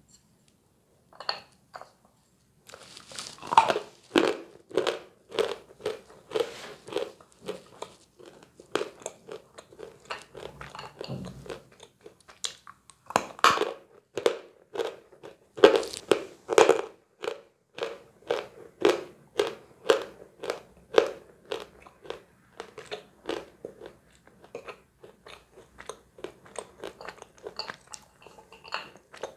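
Close-miked biting and chewing of hard, dry edible chalk: crisp crunches at about two a second, with the loudest bites around 4 s and again around 14 to 17 s in.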